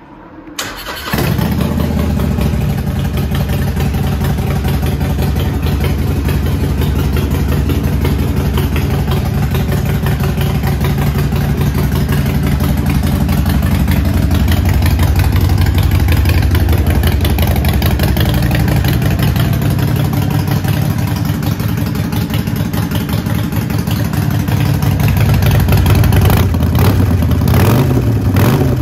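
Harley-Davidson Sportster 1200 Forty-Eight's air-cooled V-twin, stage 1 tuned with Vance & Hines exhausts, starting about a second in and then idling. Near the end the revs rise and fall a couple of times.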